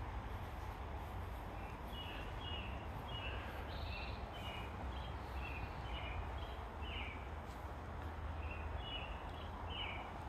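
Small birds chirping: many short high notes from about two seconds in, over a steady low rumble.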